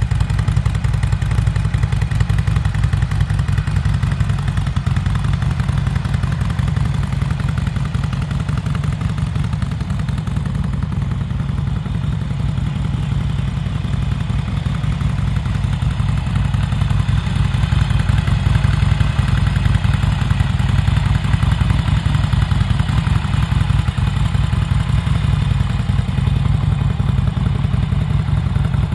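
Harley-Davidson XL1200R Sportster's 1200 cc air-cooled V-twin idling steadily, a dense low pulsing exhaust note that holds even throughout.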